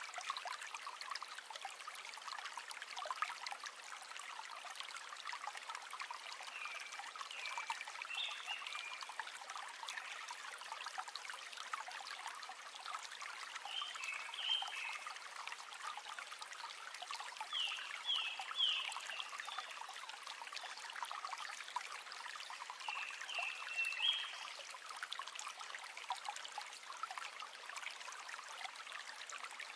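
A river trickling and babbling steadily over stones, a bright splashing haze full of small drips. Short, high chirping calls from an animal come in a few times, clustered about a quarter, half, and three quarters of the way through.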